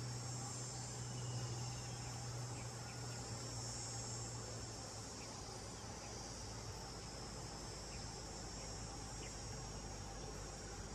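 Steady, high-pitched drone of a forest insect chorus, with a low steady hum underneath that fades out about halfway.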